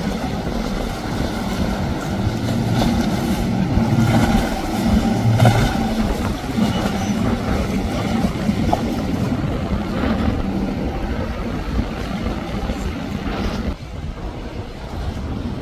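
Twin outboard motors on a center-console boat running at speed as it passes, a steady hum under the rush of spray and wind on the microphone. The sound drops suddenly near the end.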